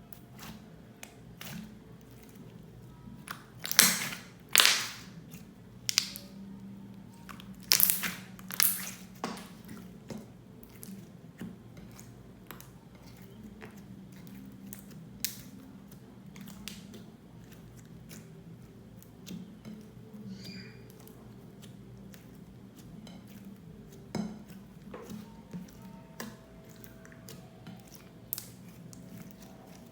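Slime being pressed and squished by hand: sticky clicks and crackling pops, with a few louder squelches about four and eight seconds in.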